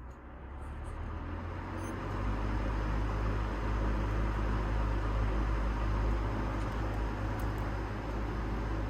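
Vintage Air King PL20P box fan with a Westinghouse motor and three metal blades, switched on at high speed: the rush of air builds over the first two seconds as the blades spin up, then runs steadily over a low motor hum.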